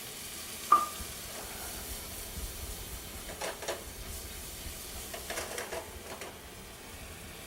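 Shrimp and andouille sausage sizzling steadily in a hot sauté pan of olive oil, white wine and lemon juice. A few short clinks and scrapes of the pan being stirred come through, one about a second in and more around the middle.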